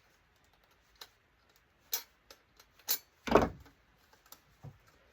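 Scattered sharp clicks and knocks from hands and tools working at a tight part of a dismantled LCD monitor, with one louder knock about three seconds in; the part does not come loose.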